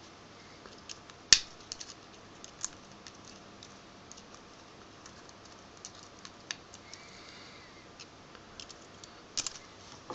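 Scattered small clicks and clinks of glass shards and metal electrode parts being handled and picked apart from a broken ECC82 double-triode vacuum tube, with one sharp click about a second in and a few quick ones near the end.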